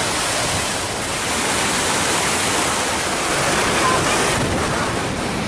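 Water overflowing an irrigation tank's spillway weir and pouring down the weir face: a steady, loud rush of falling water.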